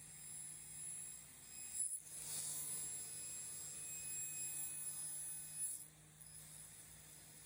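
Faint background: a steady low hum with a thin high hiss that swells briefly about two seconds in, broken by two abrupt cuts.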